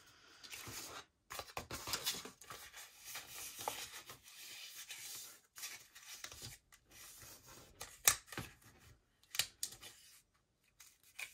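Strip of cardstock being folded back and forth into a concertina and creased by hand: stop-start paper rustling and scraping, with a couple of sharp crackles about two-thirds of the way in.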